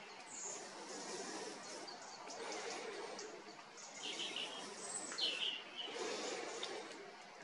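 Faint outdoor background noise, with a few short high chirps about four to five seconds in.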